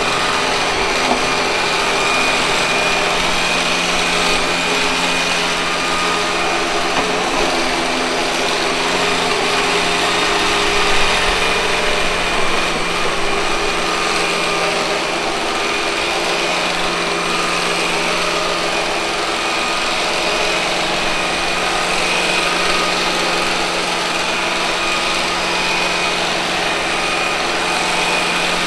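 Robot vacuum cleaner running steadily: its suction fan and brush motors make a continuous mechanical hum with a steady high-pitched whine.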